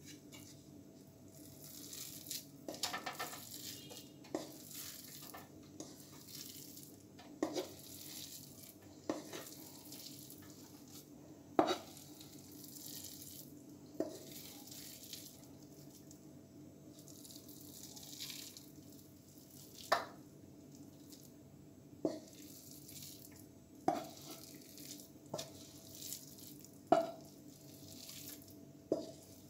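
Wooden spatula scraping thick coconut burfi mixture out of a non-stick kadhai into a metal tray, with a sharp knock of spatula on pan every couple of seconds over a faint steady hum.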